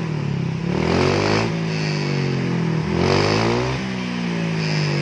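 Honda Vario scooter with an SKR aftermarket exhaust, a copy of a CMS muffler, revved up and down twice with the throttle, then dropping back to a steady idle near the end.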